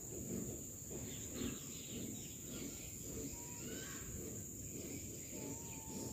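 Faint rural outdoor ambience: a steady high-pitched drone over low rumbling background noise, with a few short thin whistles near the middle and a longer wavering whistle near the end.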